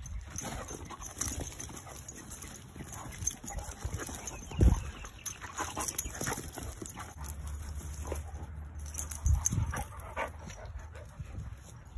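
Dogs moving about close by: scuffling paws and footsteps on dry dirt and grass, with many light clicks and a single heavy thump about five seconds in.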